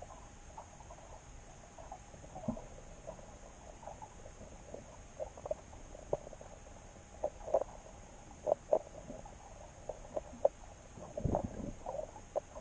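Irregular soft clicks and knocks heard underwater through a submerged camera, growing more frequent and louder in the second half, with a heavier low knock about eleven seconds in.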